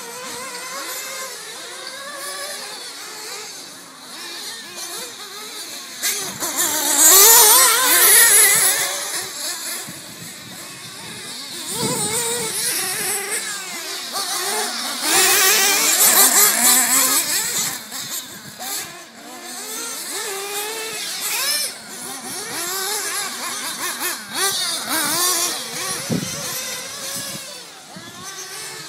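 Several remote-control race cars' small two-stroke engines whining at high revs, pitch rising and falling as they accelerate and brake around a dirt track. The sound swells twice as the cars pass close by.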